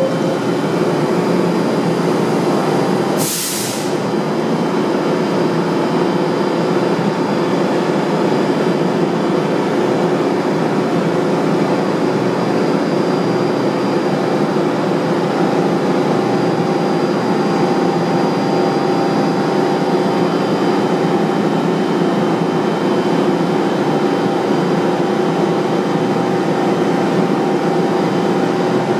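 R46 subway train standing in the station, its onboard equipment giving a steady hum and whir with several constant tones. A short hiss of released air comes about three seconds in.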